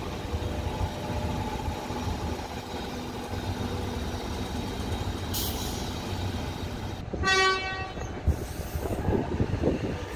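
Electric suburban train standing at the platform with a steady low hum, a short burst of hiss about five seconds in, then one short horn toot about seven seconds in, the loudest sound, followed by a thump and low rumbling.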